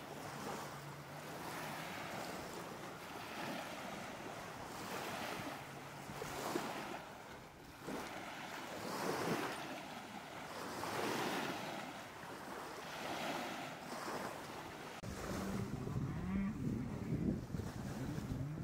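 Lake water splashing and rushing along the hull of a Hobie Tandem Island sailing kayak under sail, swelling and fading in surges about every two seconds. Wind buffets the microphone with a low rumble near the end.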